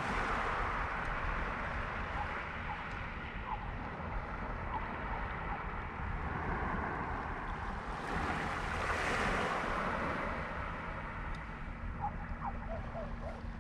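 Calm sea washing onto a shingle beach, the wash swelling about a second in and again around eight to ten seconds, with wind rumbling on the microphone.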